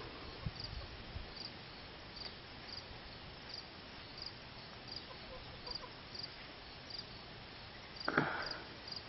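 Crickets chirping in short, regular chirps, about three every two seconds, with a brief louder noise about eight seconds in.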